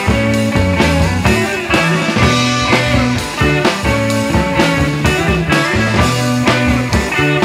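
Heavy psychedelic rock music: electric guitar, bass and drum kit playing at a steady beat.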